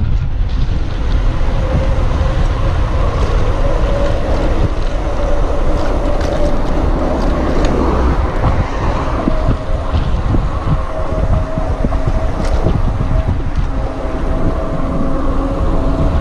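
Wind buffeting the microphone of a camera on a mountain bike rolling fast down a paved road, a steady rushing noise. A faint steady tone joins in about halfway through.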